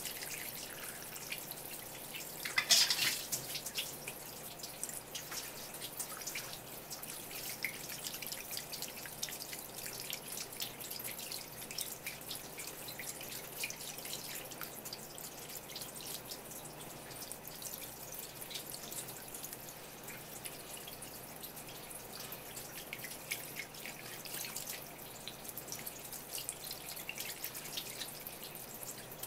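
A thin stream of running tap water splashing and dripping onto a large sardine and a wooden cutting board as the fish is rinsed and gutted by hand. There is a louder splash about three seconds in.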